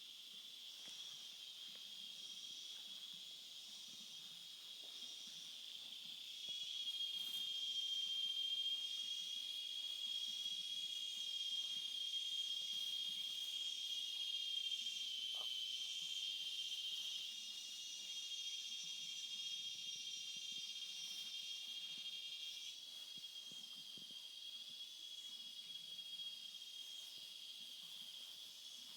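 Insect chorus: a steady high, shrill drone, louder from about six seconds in until about seventeen seconds in.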